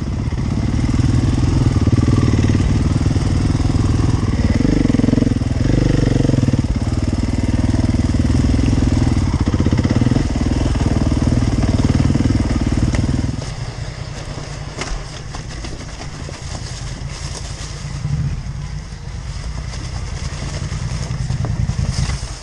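Off-road motorcycle engine running hard under load, then dropping off sharply about thirteen seconds in to a much quieter low running sound with a few scattered clicks.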